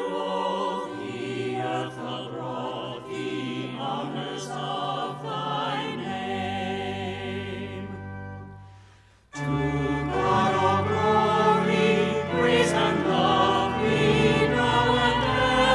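Choir singing a hymn over held low accompanying notes. About eight seconds in the music dies away, and after a brief gap it starts again, louder.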